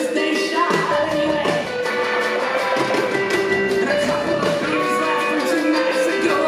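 Live rock band playing amplified music, with a singer's voice over electric guitar.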